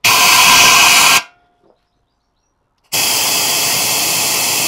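Compressed-air blow gun hissing into the oil tank built into a motorcycle frame, blowing out brake cleaner and loose sandblasting grit to dry it. It comes in two bursts: one of about a second, then after a pause a second that starts near three seconds in and is still going at the end.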